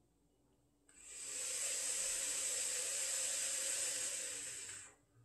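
A long, steady rush of breath through a vape, lasting about four seconds: a vaper taking a hit of e-liquid. It rises at the start and fades out at the end.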